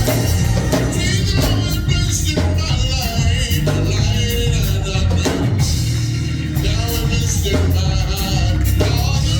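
Church music: a band with drum kit and bass playing, with voices singing.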